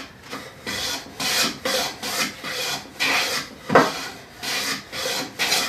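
A traditional Chinese wooden hand plane (刨子) with a dull iron scraping along soft pine in quick repeated strokes, about two a second, taking thin shavings. There is one sharper knock a little past halfway.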